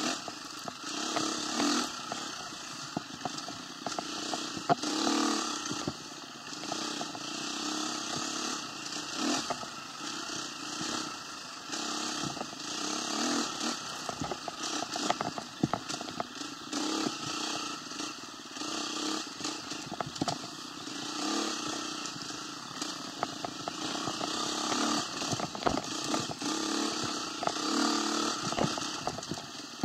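A small vehicle engine running, its speed rising and falling, with rattling and crackling clicks throughout.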